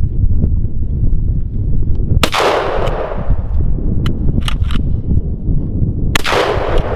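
Two shotgun shots about four seconds apart, each with a long echoing tail, fired at ptarmigan. Steady wind buffets the microphone throughout, and a few light clicks fall between the shots.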